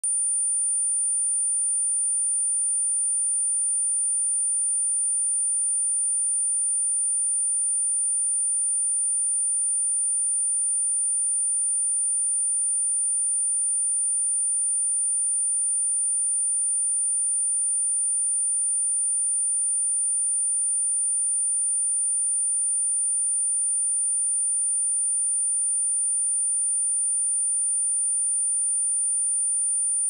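A steady, unbroken, high-pitched sine-wave test tone at 9257 Hz, held at an even level, used as a speaker test tone for shaking water and dust out of a speaker.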